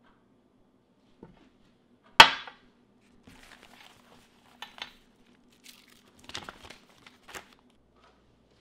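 A single sharp knock about two seconds in, then newspaper and loose paper rustling and crinkling with small clicks as a hand shuffles through papers on a desk, over a faint steady room hum.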